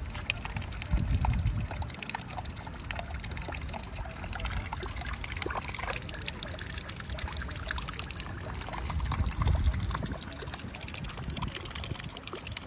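Rain falling and dripping, a steady wash dotted with many small ticks of drops. There are two brief low rumbles, about a second in and again around nine seconds.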